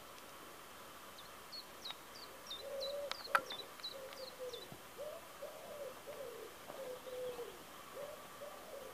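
Background birds: a small bird gives a quick run of short, high, falling chirps, and a pigeon coos in a low, wavering series that carries on to the end. A single sharp click sounds about three and a half seconds in.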